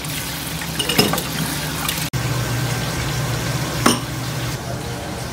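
Kitchen tap running into a stainless steel sink while dishes are washed by hand, with two sharp clinks of glass and crockery, about a second in and again near four seconds.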